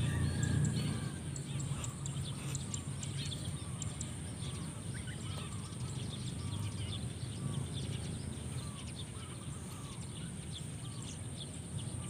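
Many small birds chirping and ticking in short calls, over a steady high-pitched drone, with a low rumble that is loudest in the first second.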